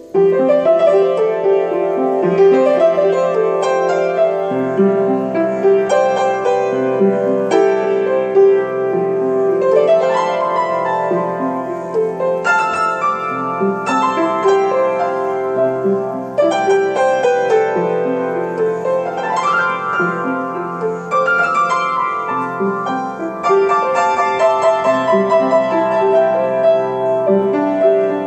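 Solo piano improvisation: a melody of ringing notes over held low chords, with quick rising runs about ten seconds in and again near twenty seconds.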